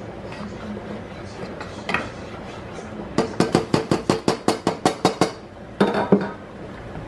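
A small metal cup rapped fast against the rim of a saucepan to knock out its contents: about a dozen sharp, ringing metal clinks in two seconds. A short clatter of cookware follows near the end.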